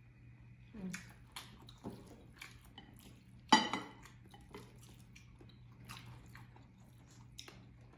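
Chopsticks clicking and tapping against ceramic plates while eating, a scatter of light taps with one sharper clink about three and a half seconds in, over a faint steady hum.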